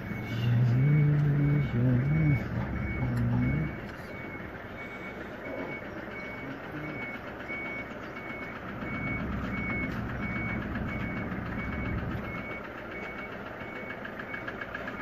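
A vehicle's reversing alarm beeps steadily, a single high tone repeating a little under twice a second. In the first four seconds a heavy vehicle's engine runs loudly, changing pitch, then settles to a lower, steadier hum.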